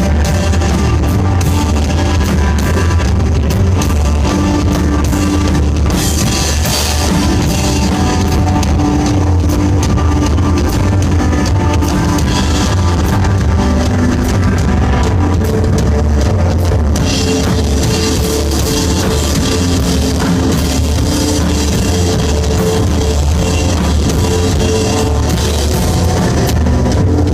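Live instrumental rock band playing: drum kit, bass and electric guitar, loud and continuous.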